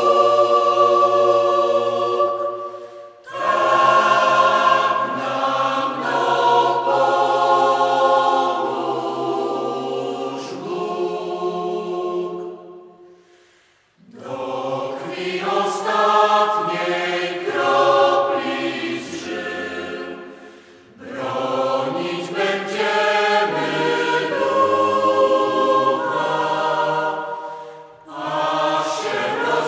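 Choir singing in long held chords, phrase by phrase, with short breaks between phrases; the longest break comes about halfway through.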